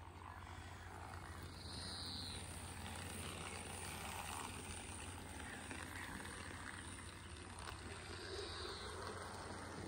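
00 gauge model steam locomotive running along garden railway track: a steady low hum from its small electric motor with the faint rolling of wheels on the rails.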